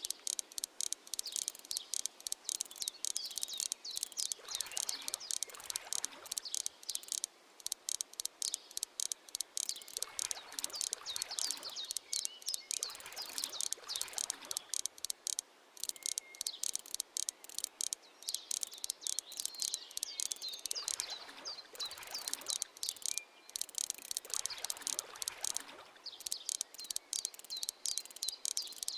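Insects chirping in a dense, rapid, unbroken pulsing trill, with a few faint soft swishes underneath.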